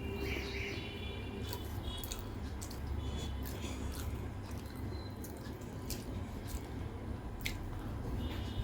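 Close-miked chewing and wet mouth sounds of a person eating, with scattered small clicks, over a steady low hum.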